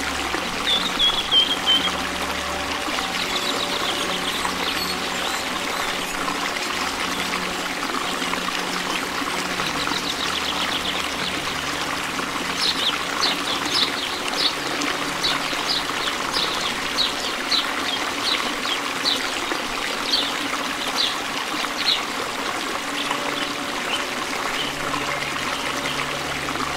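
Water trickling and pouring steadily. Short high chirps, about two a second, come in over the middle part.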